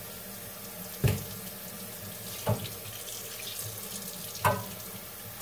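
Kitchen faucet running steadily into a stainless steel sink while a raw turkey is rinsed under it. Three brief handling sounds break through: about a second in, midway, and near the end.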